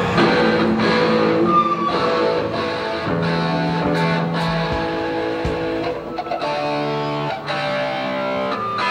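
Distorted electric guitar played live through an amplifier: ringing chords that change every second or so, with a few sharp hits over them.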